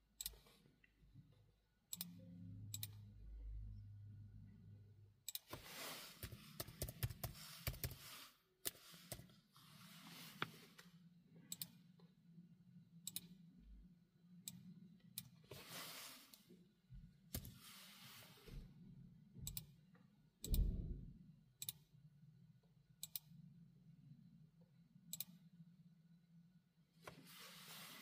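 Laptop keyboard typing and mouse/touchpad clicks: scattered single clicks and several short runs of keystrokes, over a faint steady low hum.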